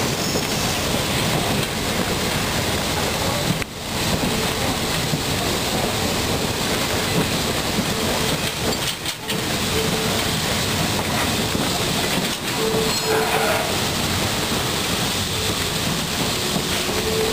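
Railroad passenger car rolling along the track, heard from an open-sided car: a steady rumble and clatter of wheels on rails, with a thin squeal coming and going now and then in the second half.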